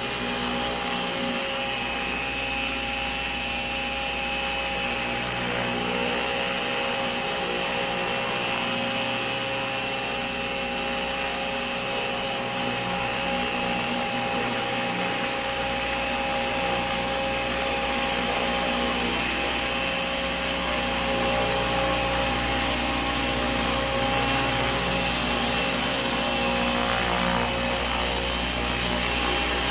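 Radio-controlled helicopter (Align T-Rex 600 ESP, electric) running in flight: a steady high whine of the electric motor and gears over the rotor noise, growing a little louder in the last third.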